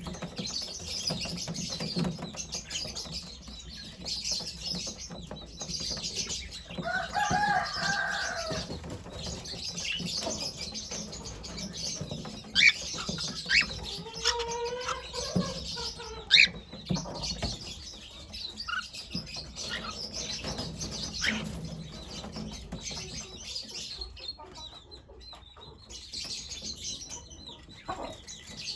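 Pet cockatiel chirping and calling, with a longer pitched call about seven seconds in and gliding calls about halfway through. A few sharp clicks stand out in the middle.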